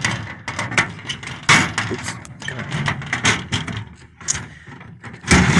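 Knocks and rattling as the bottom of a bolted-down Stanley tool chest is opened and the tools inside are handled, with a loud knock about a second and a half in and another near the end.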